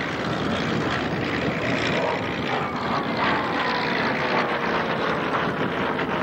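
Messerschmitt Bf 109G's Daimler-Benz inverted V12 engine in a fly-past, a loud steady roar whose engine note falls in pitch from about halfway through as the fighter passes.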